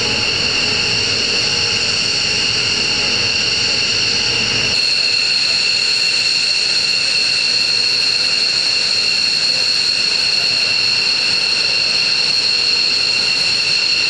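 F-15 fighter's twin turbofan engines running with a steady high-pitched whine that neither rises nor falls. The sound changes abruptly about five seconds in, as at a cut, then carries on just as steadily.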